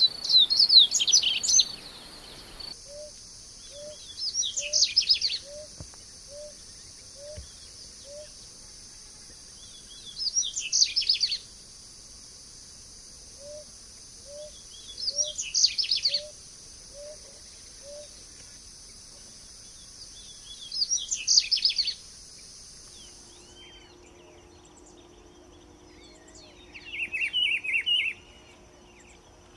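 A songbird singing short, quick phrases, each about a second long, repeating every five to six seconds. Behind it a soft series of low notes comes at about two a second. Near the end a different bird sings a lower-pitched phrase.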